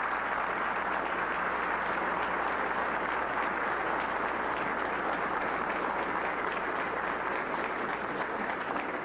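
Audience applauding, a steady clapping that eases off near the end.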